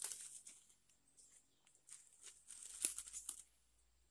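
Leaves and brush rustling close to the microphone in short crackling bursts, strongest at the start and again about three seconds in.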